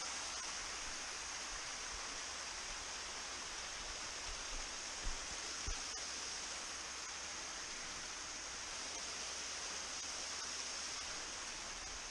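Small waterfall splashing over rock ledges into a shallow stream, a steady rushing of water. Two soft low thumps about five seconds in.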